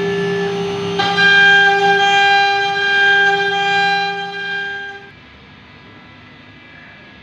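CNC router spindle cutting wood with a steady high-pitched whine that holds one pitch. It gets louder about a second in and stops about five seconds in, leaving faint background hiss.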